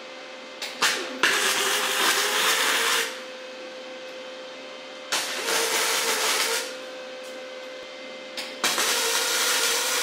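MIG welding arc crackling and sizzling on steel exhaust pipe, fed by a Weldpro MIG 155 welder: three separate welds of one to two seconds each, with a couple of sharp ticks as the arc strikes before the first. A steady hum runs underneath.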